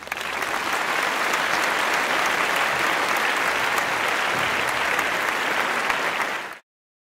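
Recorded crowd applause: dense, steady clapping that cuts off abruptly near the end.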